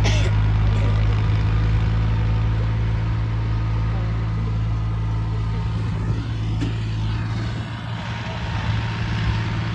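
New Holland tractor's diesel engine running steadily under load as it pulls a ridging implement through sandy soil, fading somewhat near the end as the tractor draws away.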